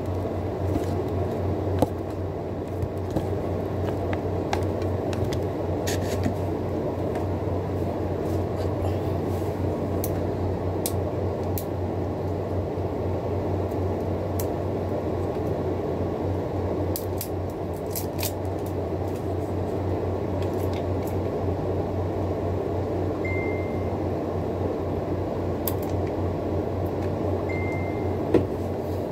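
Steady low machine hum in a small room, with occasional short, light clicks of chopsticks against a metal plate while eating, and two brief faint beeps near the end.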